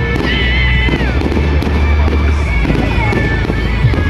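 Fireworks display finale: a dense, continuous barrage of aerial shell bursts with sharp crackling, over music playing loudly.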